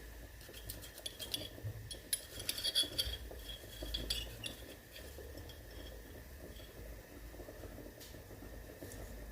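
Glassware and cutlery clinking: a quick run of light taps and clinks, some briefly ringing, through the first half, then quiet handling.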